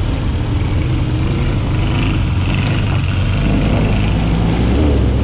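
Air-cooled Volkswagen dune buggy engine running steadily while driving, a loud, even low rumble with rushing noise over it.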